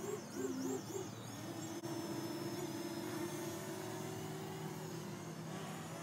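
Parrot Anafi quadcopter's propellers whining in flight, heard from the ground. A steady hum with a high whine above it; the pitch wavers up and down briefly about half a second in as the motors change speed, then holds steady.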